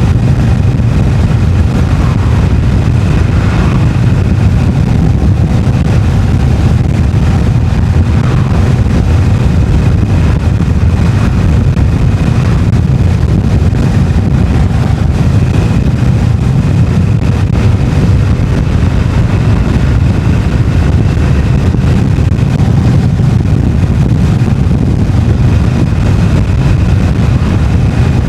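Harley-Davidson Iron 883's air-cooled V-twin with stock exhaust, running steadily under way at cruising speed.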